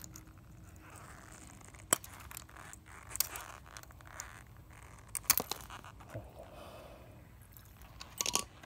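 A few faint clicks and scrapes of handling: metal needle-nose pliers and rubber-gloved hands working a small piece of lithium over a glass beaker.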